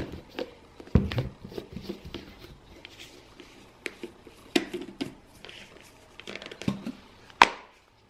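Scattered knocks, taps and rustles of handling things on a table, starting with a plastic baby bottle handled on the tabletop; the sharpest click comes near the end.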